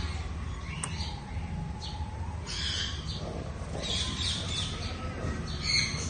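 Young conure giving short, high-pitched squeaky calls, a few times: about two and a half seconds in, around four seconds in, and just before the end. Under them runs a steady low background rumble.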